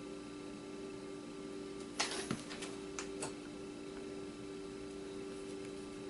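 Small hard parts being handled on a work surface: a sharp click about two seconds in, a short clatter, then two lighter clicks, over a steady electrical hum.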